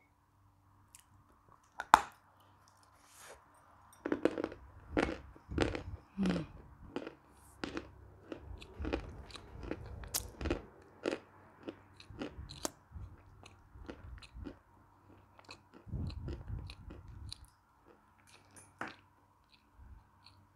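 Close-miked chewing of a piece of chalk: one sharp bite about two seconds in, then a long run of crisp crunches that thin out near the end.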